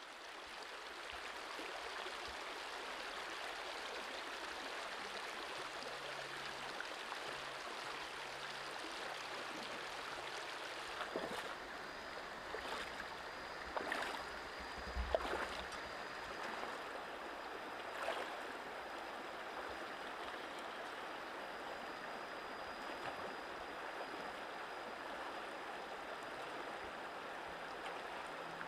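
Steady rush of flowing water, fading in over the first couple of seconds. A few short knocks come around the middle, and a thin, steady high whine runs from about the middle on.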